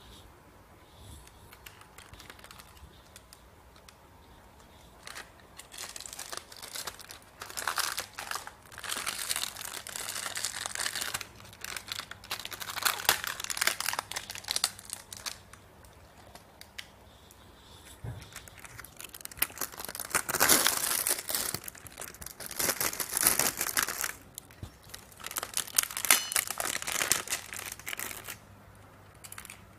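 Clear plastic wrapping crinkling and rustling as it is pulled off an amplifier circuit board and its heatsink. It comes in irregular bursts, starting about five seconds in.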